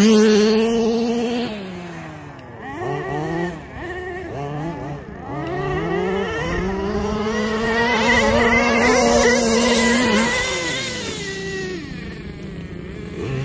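Small two-stroke engine of a radio-controlled car revving. The throttle is blipped up and down several times, then held at high revs for a few seconds before it falls away.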